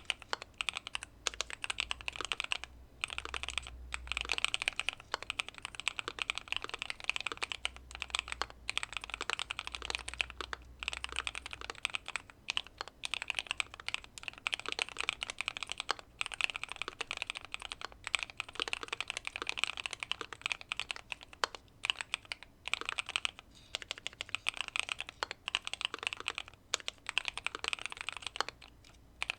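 Continuous fast typing on a Keychron Q2 mechanical keyboard with factory-lubed Pearl Lemon switches, tape-modded and case-foamed, giving dense rapid key clicks. The typing breaks off for a moment every few seconds.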